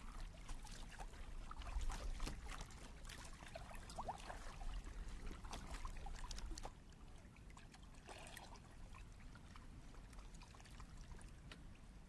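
Small waves lapping and splashing against a kayak hull at water level: a steady trickling wash dotted with many small plops and clicks. A low rumble underneath stops a little past halfway.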